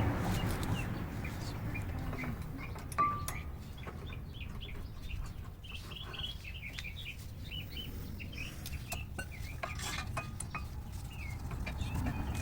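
Small birds chirping over and over, with a few light metallic clicks and clinks from brake pads and their clips being handled.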